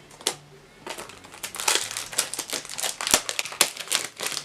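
Crinkly packaging rustling and crackling as it is handled and unwrapped, with one sharp tap about three seconds in.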